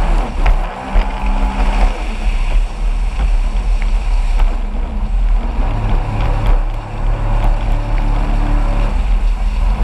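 Jet ski engine running at speed across choppy water, its note shifting as the throttle changes, under a heavy wind rumble on the microphone.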